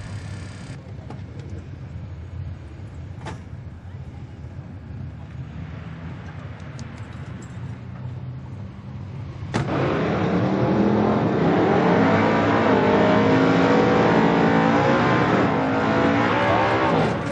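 Drag-race car engine running at a low steady rumble. About ten seconds in it jumps to a loud burnout: the engine is revved hard, its pitch rising and then held high, over the hiss of spinning tyres.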